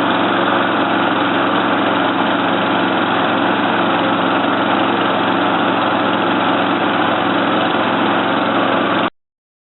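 Briggs & Stratton 3.5 Classic lawn mower engine running steadily at constant speed on its test run after an oil change. The sound cuts off abruptly about nine seconds in.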